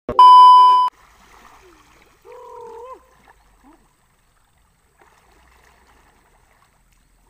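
A TV test-pattern tone: a loud, steady, high electronic beep lasting just under a second, part of a colour-bar glitch transition. After it, faint river water, with a short wavering call about two seconds in.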